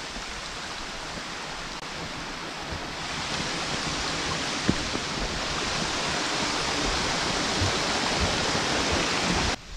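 Rushing water of a rocky forest stream, a steady hiss that grows louder about three seconds in and cuts off abruptly just before the end.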